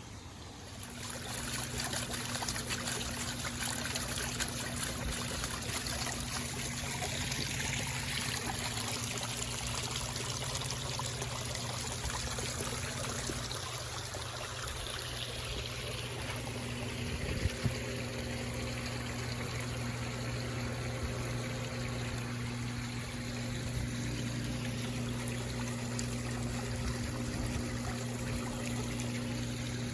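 Water trickling and splashing over rocks in a backyard recirculating waterfall, a steady flow with a low steady hum under it and a brief knock about seventeen seconds in.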